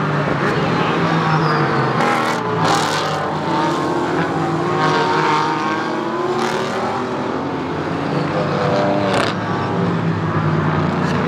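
A pack of GT4-class race cars accelerating past on a race restart, several engines overlapping with pitch rising and falling as each car goes by.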